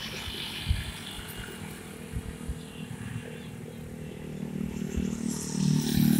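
Light motorcycle traffic on a wide road: small motorcycle engines running as they pass, one growing louder near the end as it comes close.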